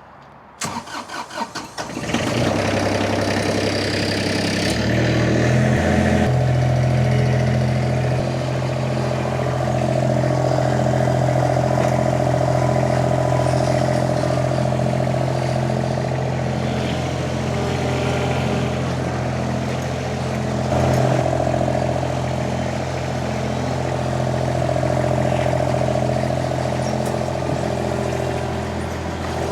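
Derette XC1100 mini skid steer's Kubota D1105 three-cylinder diesel cranking briefly on the starter, catching, and then running steadily, with its engine speed stepping up a few seconds after it starts.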